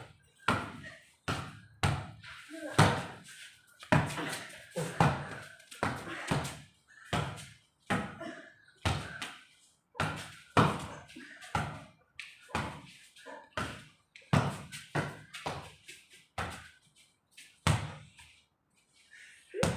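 Repeated sharp thumps at an irregular pace, about one or two a second, of hands hitting a light inflatable ball back and forth in a volleyball rally, with the ball bouncing.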